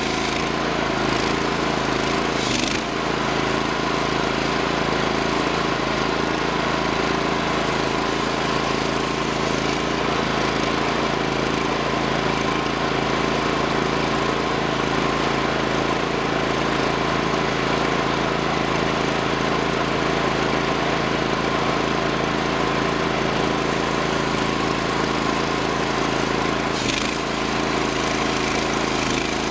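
Gasoline engine of a portable band sawmill running at a steady speed, with a couple of brief clicks.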